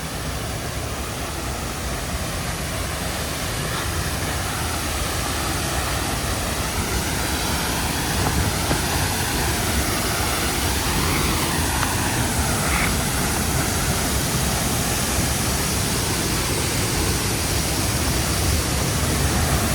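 Steady rushing roar of a waterfall and fast-flowing river water, growing slowly louder.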